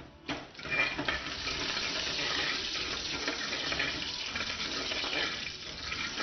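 Chopped garlic sizzling steadily in a little hot oil in a steel frying pan as it browns, stirred with a metal ladle that clinks against the pan at the start.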